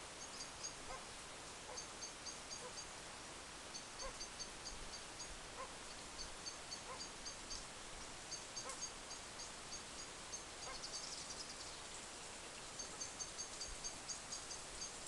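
Faint outdoor animal calls: a short call repeats about once a second, under quick trains of high-pitched chirps that come in runs throughout.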